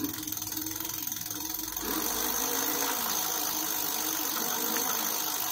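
Engwe M20 e-bike's electric hub motor running and spinning the wheel on throttle, a steady whir that speeds up and gets louder about two seconds in. It is the test of a newly fitted, rewired throttle.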